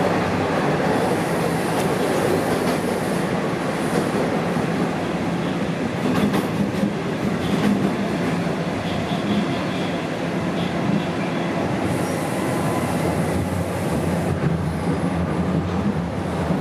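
Toronto subway train running between stations, heard from inside the passenger car: the loud, steady running noise of the car's wheels on the rails.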